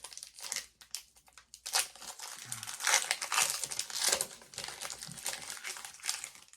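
Foil booster-pack wrapper of a Pokémon trading card game pack crinkling in irregular bursts as it is torn open by hand.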